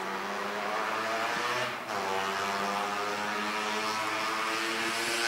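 An engine running steadily at a constant pitch, with a brief dip about two seconds in.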